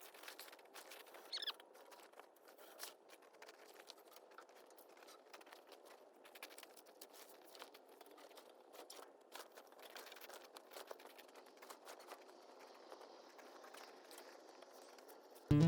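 Faint, irregular patter of small clicks and rustles, with a brief high chirp about a second and a half in.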